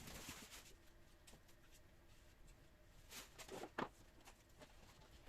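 Near silence: room tone, with a brief rustle and a light knock of something being handled about three and a half seconds in.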